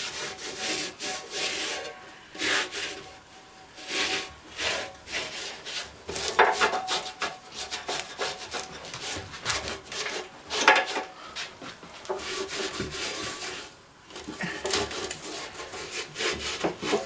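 Hand scrubbing of an old lawn mower's painted metal with a soapy rag: uneven rubbing and scraping strokes that come and go, some louder than others, as grease and flaky paint are worked off.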